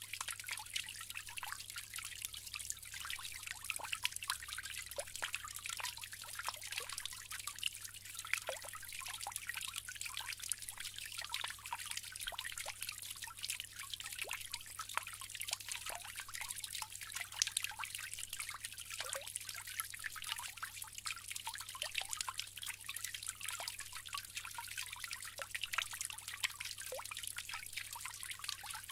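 Water trickling and splashing from a bamboo fountain: a steady, even stream full of small drips and splashes, with a faint steady low hum underneath.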